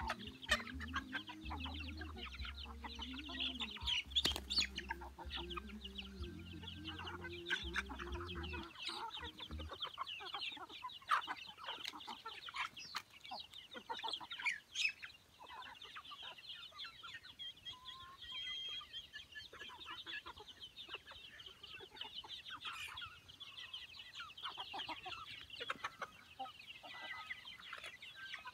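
A flock of native village chickens clucking steadily as they feed on scattered grain, with many short calls and sharp taps. A low hum underneath stops about nine seconds in.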